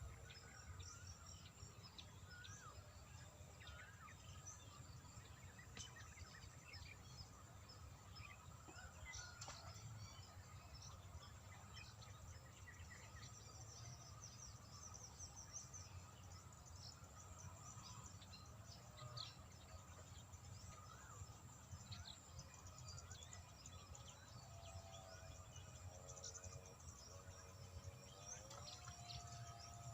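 Faint outdoor ambience: scattered bird chirps and insect calls over a low steady rumble, with a faint wavering pitched sound near the end.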